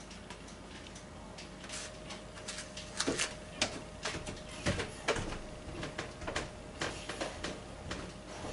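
Footsteps on a hard floor as two people walk past, with irregular clicks and knocks that begin about two seconds in and grow louder from about three seconds in.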